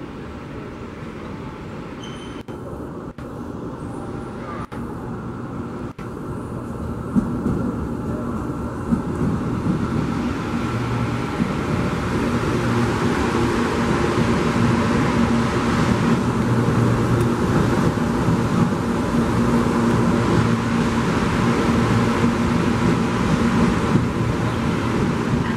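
CPTM 8500-series electric commuter train running into the platform: steady rolling and running noise with a held hum, quieter at first and growing louder from about seven seconds in as the cars pass close by.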